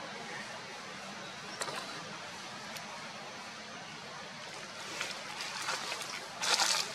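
Steady outdoor background hiss with a few faint clicks, and a short burst of crackling noise about six and a half seconds in.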